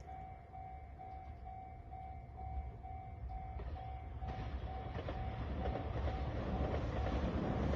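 Railway level-crossing alarm sounding its evenly repeated electronic bell, about three strokes a second, while the rumble of an approaching train grows steadily louder from about halfway in.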